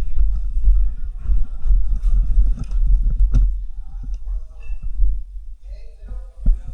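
Footsteps and kit movement picked up by a body-worn camera: repeated dull thumps and handling rumble, with scattered sharp clicks and crunches of debris underfoot.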